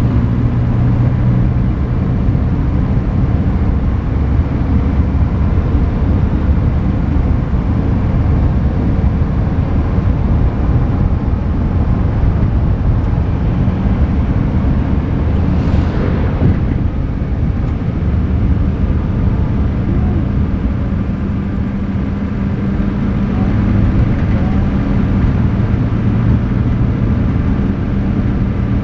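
Steady road noise from a moving vehicle, heard from outside: tyre and wind rush with a low engine hum that fades and returns. A brief whoosh comes about halfway through.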